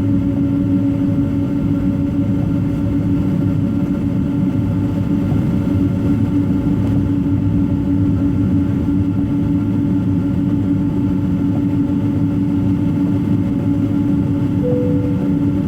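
Boeing 777 airliner's jet engines running at low power, heard inside the cabin as a steady drone with a constant hum and rushing air.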